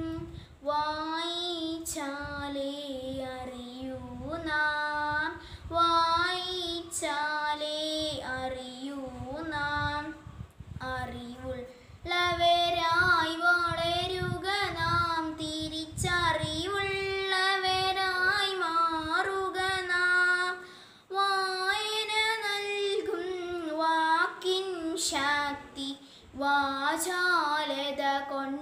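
A young girl singing solo and unaccompanied, holding long notes in phrases broken by short pauses for breath.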